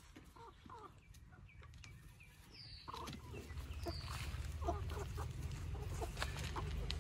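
Young chickens clucking in short, soft calls, with a couple of high falling peeps among them. The clucking gets louder about three seconds in.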